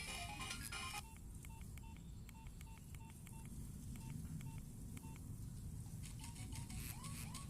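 Nokia mobile phone playing a simple beeping ringtone: short electronic beeps at one pitch in quick, uneven groups, starting about a second in after a fuller melody cuts off. Near the end a different tune of quick upward-sliding notes begins.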